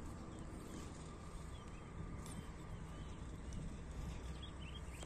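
Outdoor ambience: a steady low wind rumble on the microphone, with a few faint bird chirps in the last couple of seconds.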